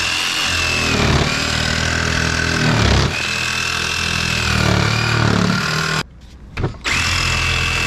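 DeWalt cordless jigsaw cutting a zigzag through a wooden sheet board, its motor whine dipping in pitch several times as the blade takes the load on the turns. It stops for a moment about six seconds in, then starts cutting again.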